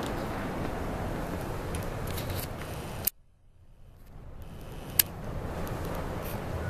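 Steady outdoor background noise broken about three seconds in by a sharp click and about a second of near silence that fades back in, where the recording is cut to a new shot; another sharp click follows about five seconds in.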